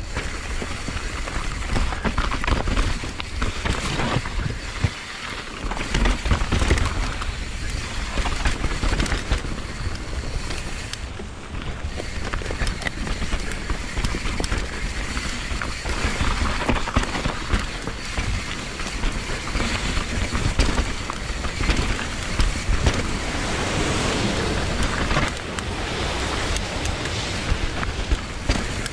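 Mountain bike ridden down a dirt trail: a continuous rush of tyre and wind noise with heavy low buffeting, and the bike rattling and knocking over bumps and roots throughout.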